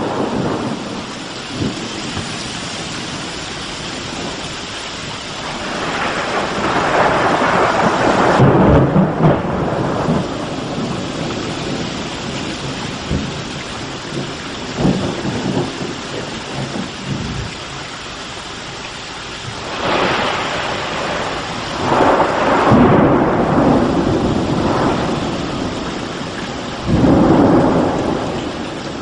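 Thunder rolling again and again over steady rain: long rumbles swell and fade about a quarter of the way in, twice about two-thirds through, and once more near the end.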